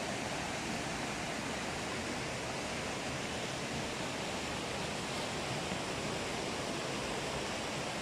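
River water rushing steadily over rocky cascades.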